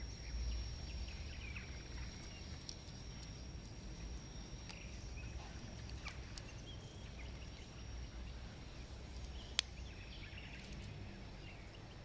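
A few sharp metallic clicks as the Victorinox Swiss Champ's blades and tools are folded and handled, the loudest about nine and a half seconds in, over outdoor ambience with faint bird chirps and a steady high whine.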